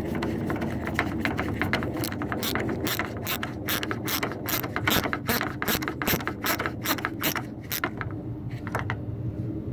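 Ratchet wrench clicking in a steady run of about three or four clicks a second while it drives a 15 mm bolt back in. The clicking stops near the end.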